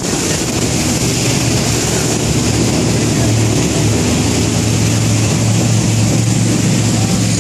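Motorboat engine droning steadily under a constant rush of wind and water, heard on board a boat under way at speed.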